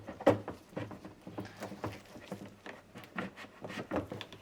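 A motorcycle fuel pump assembly being worked into a plastic fuel tank, with a run of light, irregular knocks and clicks as it bumps and scrapes against the tank.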